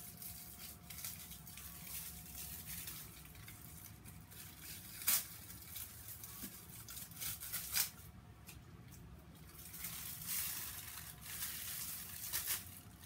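Rustling of clothing with scattered clicks as a belt and its metal buckle are handled and fastened; the two sharpest clicks come about five seconds in and just before eight seconds. A faint steady hum runs underneath.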